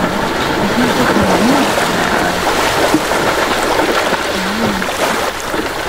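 Wildebeest splashing and churning through a shallow river as they cross, the water rushing throughout, with a few short low calls, twice in the first half and once more at about four and a half seconds.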